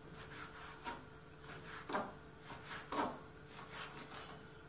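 Knife cutting smoked herring into pieces on a cutting board: several short knocks about a second apart, with softer taps between.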